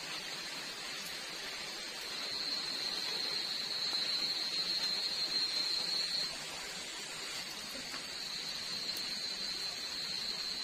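Night-time forest ambience: a steady, high-pitched chorus of night insects over a constant hiss. It swells for a few seconds from about two seconds in, then settles back.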